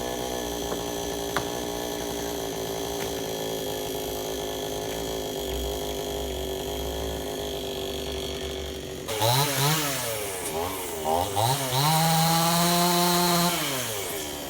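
Two-stroke chainsaw running at a steady low speed, then its throttle is blipped several times and held high for a second or so before dropping back.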